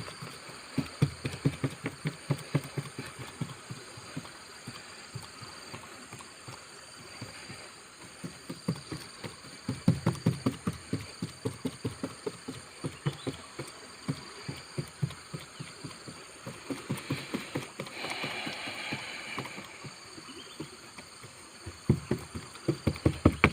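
A paintbrush dabbed quickly and repeatedly onto fibreglass cloth, about three or four strokes a second in several runs with short pauses, working catalysed polyester resin into the weave of a boat repair patch.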